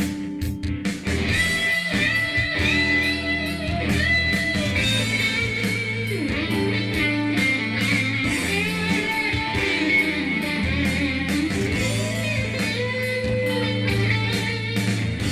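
Background music: electric guitar with bass and a steady beat.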